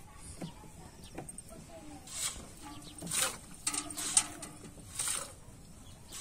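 Cow being milked by hand: milk squirting into a steel pail in short spurts, about five of them from two seconds in.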